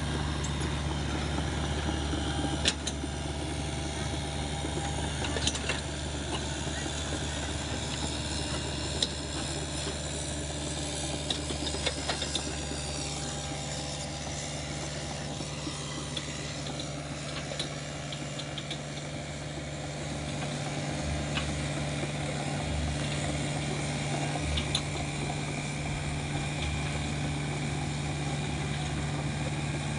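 Hitachi ZX48U mini excavator's diesel engine running steadily, with occasional short sharp knocks.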